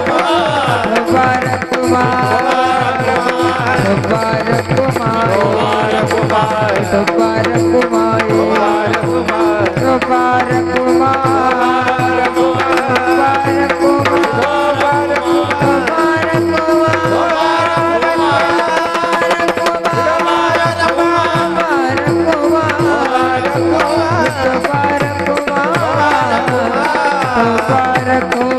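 Marathi devotional kirtan music: a singer's high voice sliding through a long wordless melodic passage over a steady held drone note, with a hand drum played in fast, dense strokes throughout.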